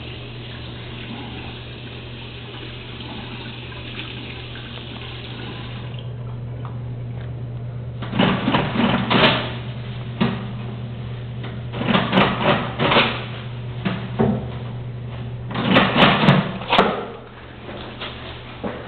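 Tap water running into a restroom sink during hand-washing, stopping about six seconds in. Then come three loud bursts of noise a few seconds apart, over a steady low hum.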